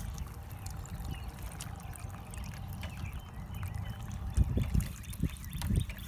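Water trickling as it flows through a tube into the base of a plastic vacuum chicken waterer and its drinking tray, over a steady low rumble. A few low bumps come in the last couple of seconds as a hand handles the tube.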